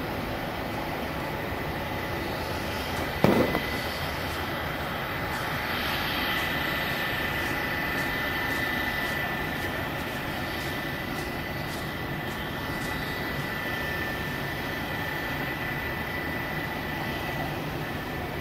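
Jet engines of a Japan Airlines Boeing 767 running at low taxi thrust: a steady jet noise with a thin steady high whine over it. A single short, sharp knock about three seconds in is the loudest sound.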